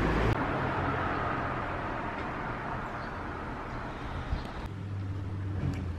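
Outdoor ambience: a steady rushing background noise that slowly fades, changing abruptly twice.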